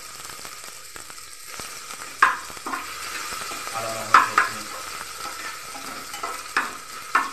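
Cumin, dried chillies, bay leaf and ginger paste sizzling in hot oil in an open aluminium pressure cooker on a low flame, stirred with a steel spatula that scrapes and knocks against the pot. Several sharp clanks, the loudest about two and four seconds in.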